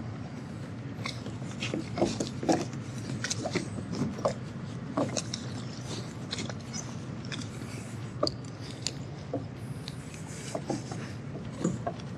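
Tow lines being handled and made fast at the bow cleats of two boats lying together: irregular clicks, taps and knocks of rope and fittings against fiberglass, over a low steady rumble.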